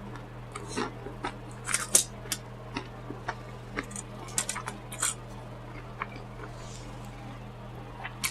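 Close-miked mouth sounds of someone eating: irregular chewing and smacking in short, uneven bursts, over a low steady hum.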